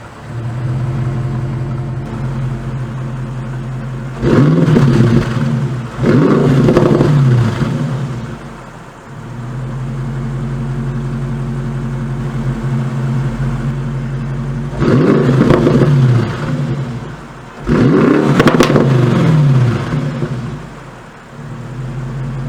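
A Bentley Continental GT3-R's 4.0-litre twin-turbo V8, with an Akrapovic exhaust, idling and being blipped four times, in two pairs with a stretch of steady idle between. On each rev the engine note rises sharply and then falls back to idle.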